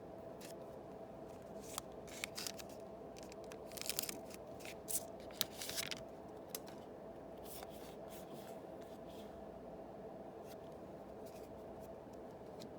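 A Yu-Gi-Oh booster pack and its cards being handled: a cluster of short crinkles and clicks through the first half, then only a steady low background hum.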